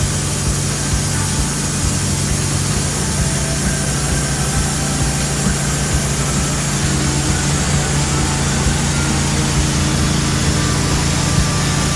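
Wood-Mizer LT15 portable sawmill's engine running steadily, with a constant low hum and an even noise from the mill.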